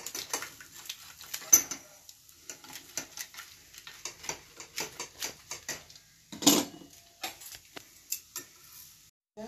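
A pizza cutter rolling and scraping through a paratha in a nonstick pan, with many small clicks and knocks of utensils against the pan. A sharp clack comes about a second and a half in, and a louder clatter a little past six seconds.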